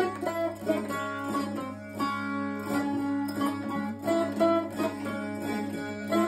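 Hungarian citera, a fretted folk zither, strummed in quick rhythm. A folk melody is played on the fretted strings over steadily ringing drone strings.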